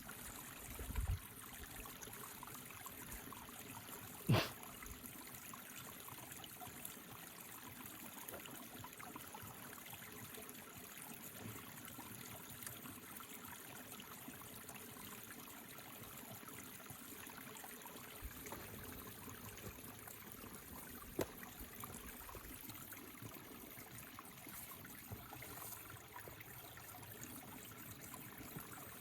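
Steady trickle of running water, with one sharp knock about four seconds in and two fainter ones, one near the start and one later.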